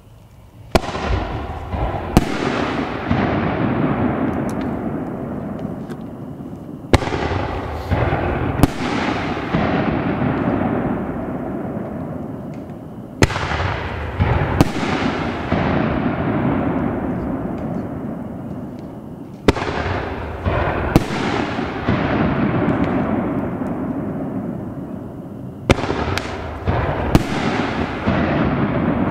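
Dynomite Fireworks' Toxic Salute, a 9-shot consumer fireworks cake, firing one shot about every six seconds, five shots in all. Each shot is a launch thump from the tube, then about a second and a half later a louder bang as the shell breaks in the sky, then several seconds of fading noise.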